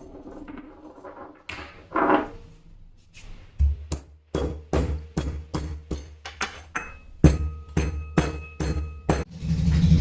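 A pestle pounding ginger and black peppercorns in a mortar: a run of sharp strikes about three a second, starting a few seconds in. The later strikes ring with a clear tone.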